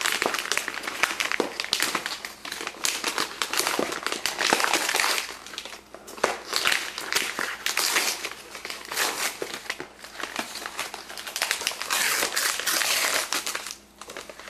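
Gift wrapping paper being crinkled and crumpled as a present is unwrapped by hand, in a continuous crackly rustle with a few brief lulls.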